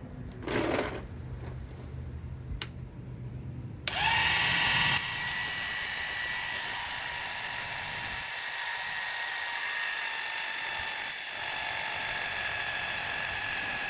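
12-volt electric hydraulic jack's pump motor switching on abruptly about four seconds in and then running steadily with a whine as it lifts a truck. A short rustle and a click come before it starts.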